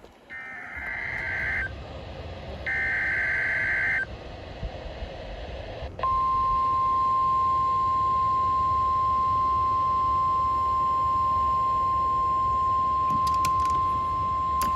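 Emergency Alert System SAME header: two roughly one-second bursts of warbling digital data tones, followed about two seconds later by a steady single-pitch alert tone (the 1050 Hz NOAA Weather Radio warning tone) held for about nine seconds, opening a weekly test broadcast.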